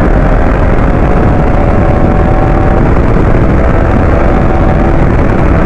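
Sport motorcycle engine pulling hard at highway speed, heard from the rider's seat, with a steady wind rush over the microphone.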